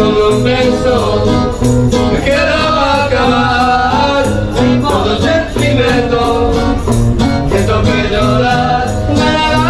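Music: a song with a singing voice over steady bass notes and a regular beat.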